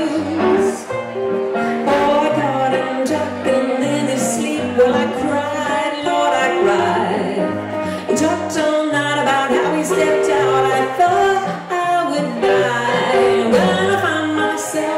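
Live boogie-woogie blues from a hollow-body electric guitar and a stage keyboard, the keyboard walking a stepping bass line of low notes under the chords and guitar lines.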